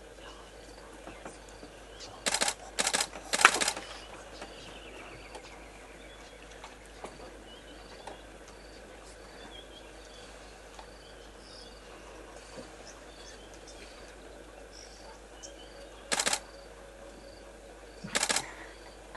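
Camera shutters firing in rapid bursts: three clusters about two to three and a half seconds in, and two more near the end. Under them is a faint outdoor background with a small high chirp repeating about twice a second.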